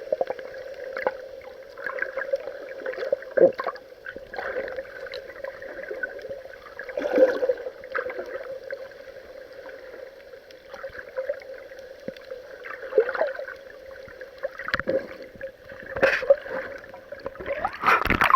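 Water sloshing and gurgling against an action camera's waterproof housing, heard muffled through the housing, with irregular splashes and knocks against it.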